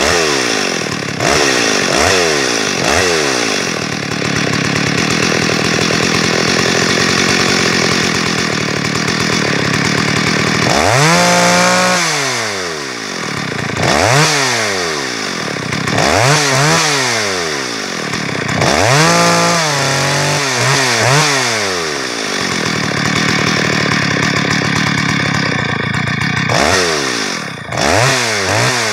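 Two-stroke chainsaw cutting wood at high throttle. The engine revs up and down several times, near the start and again through the middle, between steady stretches of cutting.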